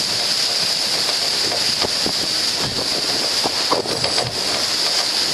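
Wind buffeting the microphone over the steady rush and splash of water from a boat under way on open water, with a few short splashes.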